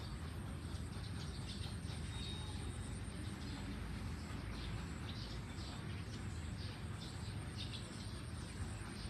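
Outdoor ambience: a steady low rumble with short, scattered bird chirps every second or two.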